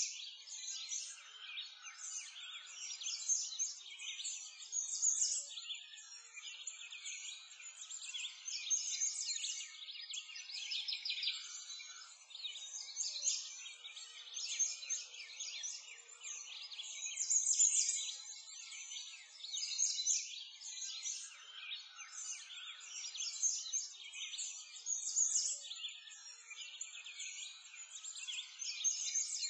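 Many small birds chirping and twittering at once: a dense, continuous chorus of high chirps.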